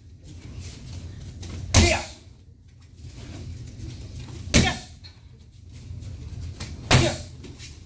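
Three strikes landing on a handheld kick shield, each a sharp smack, a little over two seconds apart.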